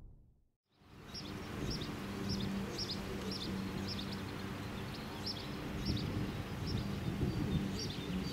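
Outdoor ambience that sets in about a second in: a bird chirps again and again in short high notes, over a steady low hum.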